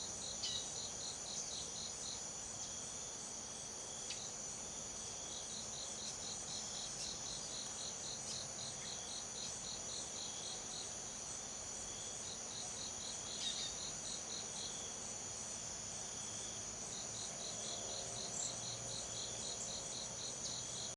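Tropical forest insect chorus of crickets and other insects: a steady high buzz under a fast pulsing chirp train, about four or five pulses a second, that stops and starts again several times. A few brief sharp notes stand out now and then.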